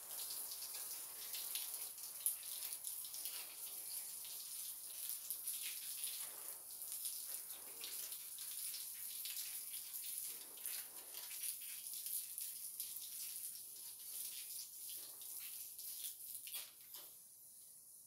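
Water from a garden hose spraying and splashing onto a concrete floor and a wire mesh rack, a steady hiss with uneven splashes. The flow stops about 17 seconds in.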